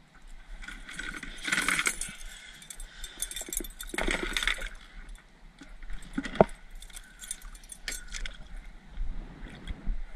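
Hands unhooking a small fish over a plastic bucket: light metallic clinks of hook and tackle mixed with rustling handling noises, with a single sharp knock about six seconds in.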